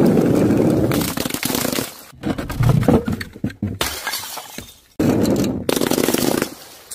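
Glass bottles and jars smashing and shattering on stone paving: several crashes of breaking glass one after another, each starting and stopping abruptly. Some of the jars are filled with coloured powder.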